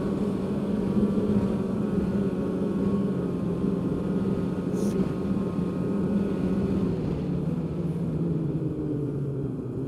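The two-stroke 800 twin of a 2015 Polaris Pro S 800 snowmobile running steadily under way on a trail, heard from the rider's seat. Its note drops and eases off a little in the last few seconds.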